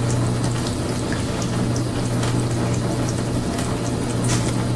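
Kitchen faucet running a thin stream of water into the sink: a steady rushing with a low hum under it and scattered small clicks.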